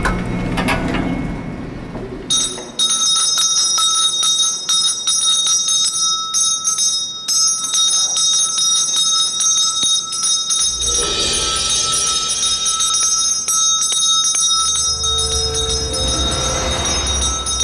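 Dramatic background music built on a shimmering, bell-like tremolo of sustained high tones. A low rumble comes in a little past halfway and swells again near the end.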